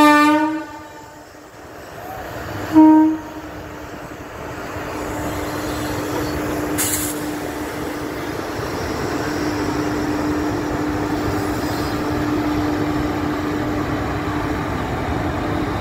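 Indian Railways electric locomotive sounding its horn twice, a longer blast and then a short one about three seconds later. After the horn comes the steady, growing rumble of the train running along the tracks.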